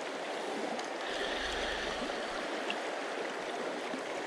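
Fast, shallow river current rushing steadily over a stony bed.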